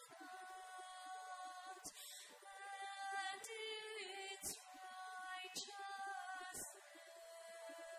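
A woman singing solo, a slow melody in long held notes.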